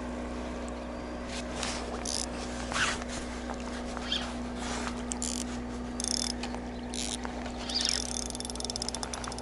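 A hooked asp being fought on a spinning rod: several short splashes and swishes over a steady low hum, with a fast run of clicks from the reel near the end.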